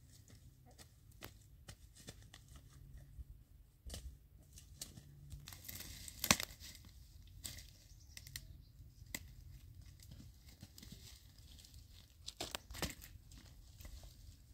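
Dry brushwood and leaf litter crackling and snapping, with scattered sharp cracks; the loudest comes about six seconds in, and two more come close together near the end.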